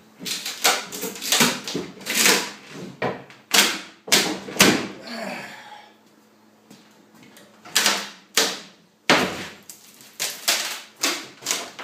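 Wooden shipping crate being pried apart with a crowbar: an irregular run of sharp knocks and wood cracks as a side panel is worked loose, with a longer rasping sound about five seconds in.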